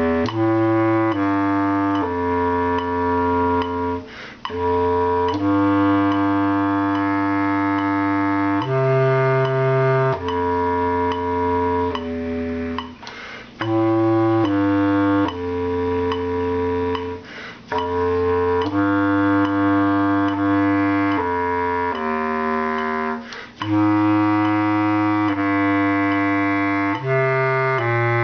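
Bass clarinet playing a slow harmony line in long held notes, each lasting a second or two. The playing breaks off briefly for a breath about four times.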